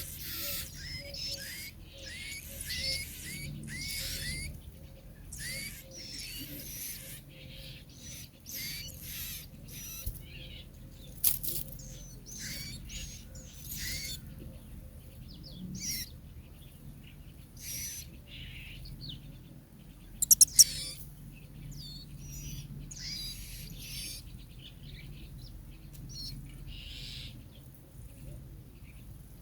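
Small bird chirping: many short, high calls, close together at first and then more spaced out, with a few sharp clicks in between.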